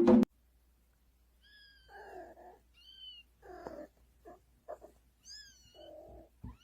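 Cat meowing: a string of short, soft meows and high chirping calls, starting about a second and a half in.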